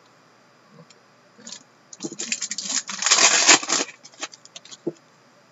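Foil hockey-card pack being torn open and its wrapper crinkled: a burst of crackling starts about two seconds in, is loudest about a second later, then trails off into a few light crinkles.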